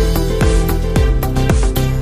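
Background music: an electronic track with a steady beat of about two beats a second.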